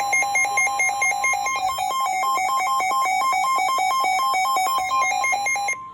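Emergency Alert System attention tone on a NOAA Weather Radio broadcast: a loud electronic alert rapidly alternating between two pitches. It cuts off abruptly near the end, leaving a faint steady tone. It heralds a severe thunderstorm warning.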